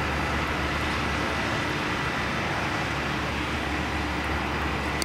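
Light aircraft's Rotax four-cylinder engine and propeller at takeoff power during the takeoff roll: a steady, distant drone with a low propeller hum, over steady airport background noise with a faint high whine.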